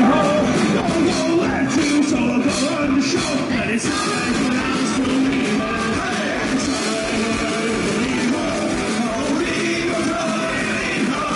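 Live rock band playing electric guitar and bass, with singing.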